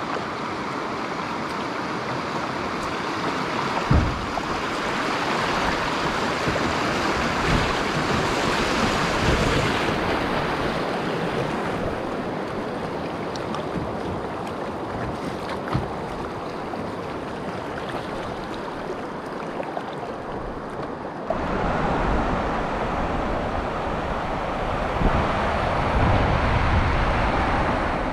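Rushing, splashing water of a Class II river rapid heard close from a kayak moving through it, with a few dull knocks now and then. About three quarters of the way through, the rush steps up louder and deeper as the boat runs rougher water.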